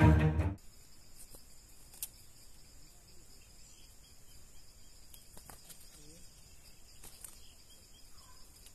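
Steady high-pitched insect chorus, two even bands of trilling, with a single faint click about two seconds in. The closing note of a bowed-string music track cuts off just after the start.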